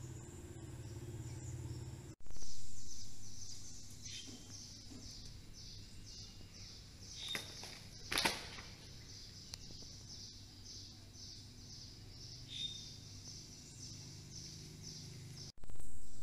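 Outdoor ambience with a high-pitched chirp repeating steadily a few times a second, and a couple of sharp knocks in the middle. The sound cuts out briefly twice, each time coming back with a loud burst that fades away.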